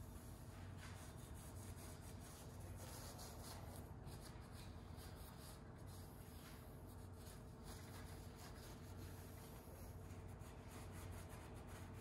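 Faint rubbing and scuffing of a shop rag wiping oil off the bare LT4 engine block's oil-pan mating surfaces, over a low steady hum.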